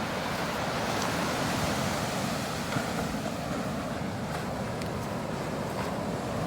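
Steady rush of ocean surf, mixed with wind.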